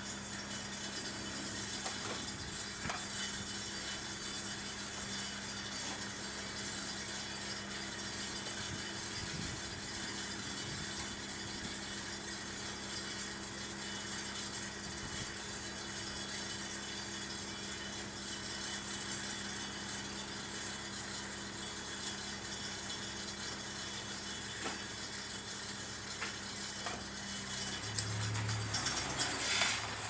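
Steady low engine hum with faint scattered clinks, and near the end a vehicle engine briefly growing louder as it moves off.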